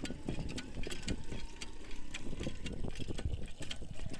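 Hand pump being worked, its handle and mechanism clanking and clicking in an irregular run, while water falls into a clay pot.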